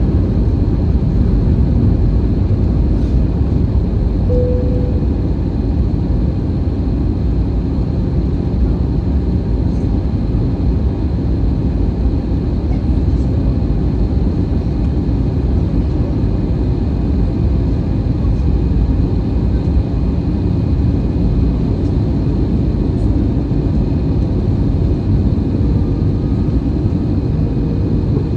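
Steady cabin noise inside an Airbus A320-214 on descent: a low rumble of airflow and its CFM56 turbofan engines, heard from a seat beside the wing, with faint steady whines above it. A short tone sounds about four seconds in.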